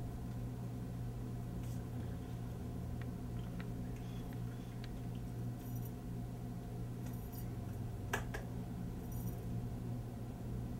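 Room tone with a steady low electrical hum and a few faint clicks and taps, one sharper click about eight seconds in.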